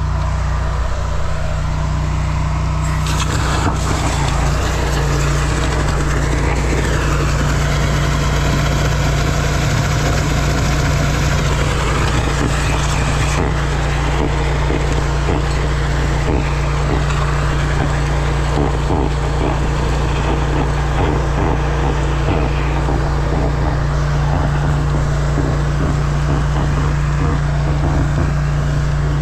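High-pressure drain jetter's engine running steadily while the jetter hose works inside a stormwater pipe to clear tree roots, with water rushing out of the drain.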